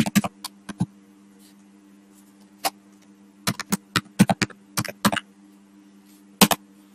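Computer keyboard keystrokes clicking in short runs of typing with pauses between, over a faint steady hum.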